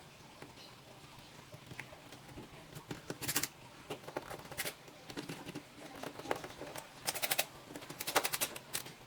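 Small clicks and light rattles from handling laptop parts: irregular clusters of quick clicks, loudest about three seconds in and again near the end.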